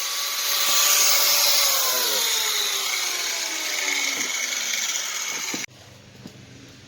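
Electric power tool, most likely an angle grinder, running against metal with a hiss, its pitch sinking as it is pressed into the work. It cuts off suddenly about five and a half seconds in.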